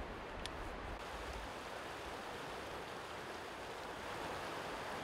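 A creek's water running: a steady rush that grows a little louder near the end.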